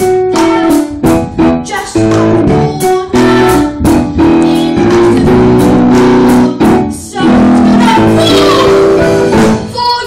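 A musical number: a young performer singing over piano accompaniment.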